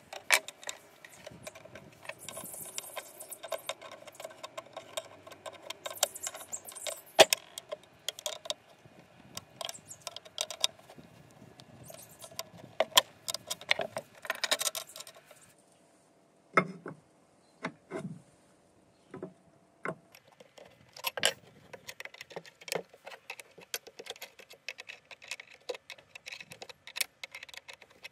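An open-end spanner and steel bolts, nuts and brackets clinking against a steel base plate as parts are fitted and tightened: a run of irregular small metallic clicks and taps. About halfway through, a short stretch of sparser single knocks breaks the run.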